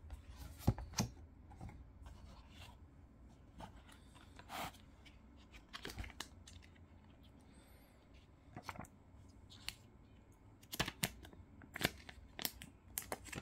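Product packaging being opened and handled by hand: irregular clicks and taps, with rustling and short tearing or snipping sounds, the longest rustle about four and a half seconds in and a cluster of clicks near the end.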